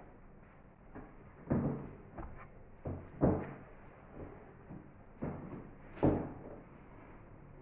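Recipe books being handled: a series of about five knocks and thumps as books are moved and set down, the loudest about three and six seconds in.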